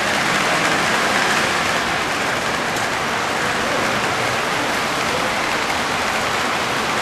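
Two 2-rail O scale model freight trains rolling past on separate tracks: a steady, even rush of metal wheels running on the rails.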